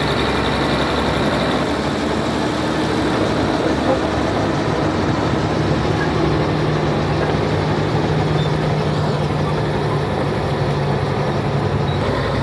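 Komatsu D80A bulldozer's six-cylinder diesel engine running steadily, a low hum whose deep tone grows stronger about halfway through.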